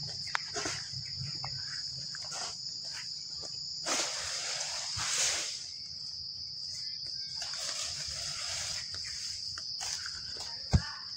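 Steady, high-pitched chorus of insects chirring without a break, with a few soft knocks and two short spells of noise about four and eight seconds in.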